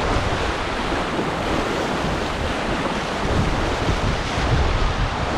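Steady rush of whitewater on a river, with wind buffeting the microphone as a low rumble.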